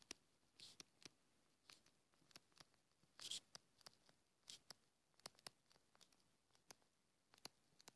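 Faint, scattered taps and scratches of a stylus writing on a tablet screen, a dozen or so small clicks in near silence.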